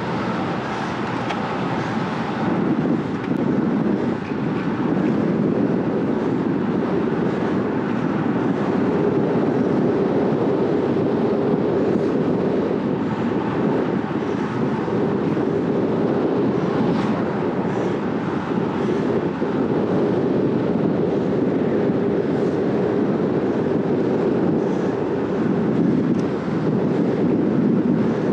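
Steady rush of wind over the microphone of a road bike riding fast, around 40–47 km/h, mixed with the hum of its tyres on asphalt. It grows a little louder a few seconds in, then holds steady.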